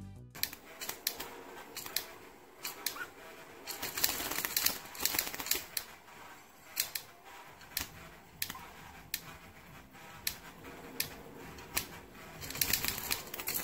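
Fingertip tapping a small plastic toy in a budgie's cage as if it were a drum: irregular sharp clicks, with quicker runs of taps a few seconds in and near the end.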